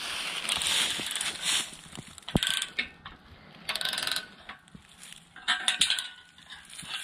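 Socket ratchet wrench clicking in several short bursts as it tightens the bolt of a caster wheel on a steel engine-hoist leg.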